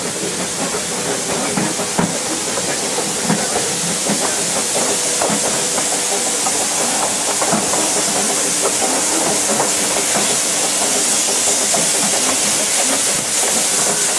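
Narrow gauge train hauled by Darjeeling Himalayan Railway steam locomotive No. 19, heard from an open-sided carriage while running: a steady hiss of steam with many scattered clicks and rattles from the wheels and carriage, the hiss growing a little louder toward the end.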